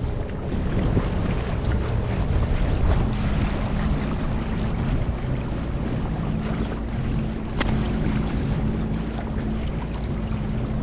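Mercury 8 hp two-stroke outboard motor running steadily, driving an inflatable boat along the water, with wind on the microphone. A single sharp click sounds about two thirds of the way through.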